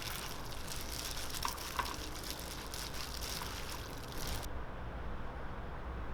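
Liquid pouring or running: a bright hiss that starts suddenly and cuts off after about four and a half seconds.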